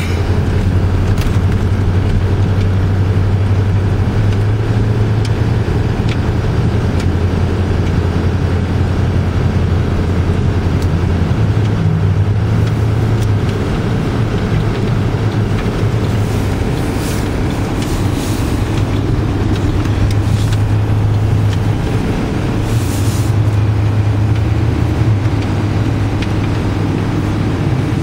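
Car driving slowly over snow-covered streets, heard from inside the cabin: a steady low engine and road hum with tyre noise on snow.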